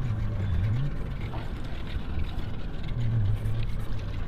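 Small boat's outboard motor running at low revs, a low hum that wavers slightly in pitch.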